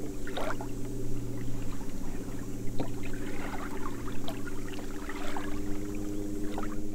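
Flats boat's outboard motor running at a steady pitch while underway, with water splashing and slapping against the hull.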